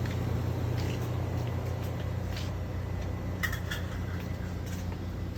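Steady low hum of a store's background, with a few faint short clicks about three and a half seconds in.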